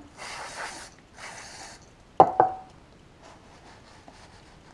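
Two short wiping rubs, then two sharp metal clinks about a quarter second apart as brake caliper parts are handled on a wooden workbench. The clinks are the loudest sounds, and the second one rings briefly.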